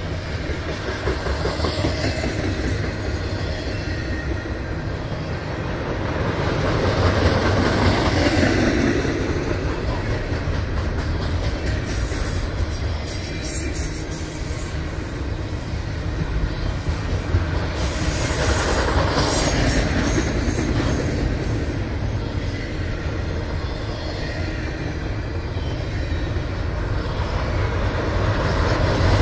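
Double-stack intermodal freight train of container well cars rolling past: a steady rumble and rattle of steel wheels on the rails, swelling twice, with brief high wheel squeals about twelve and eighteen seconds in.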